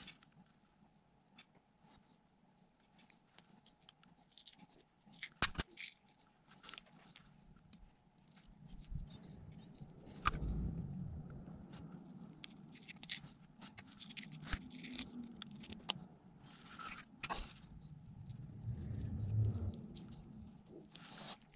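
Faint scattered clicks and scrapes of small metal parts being handled and fitted to a drill grinder's cast housing, with soft rubbing of hands against the part.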